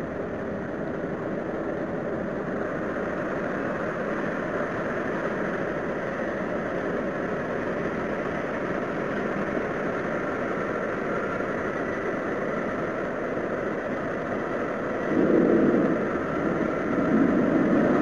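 A steady, noisy rumbling drone of unknown source, posted as an unexplained 'strange sky sound'. It swells louder twice near the end.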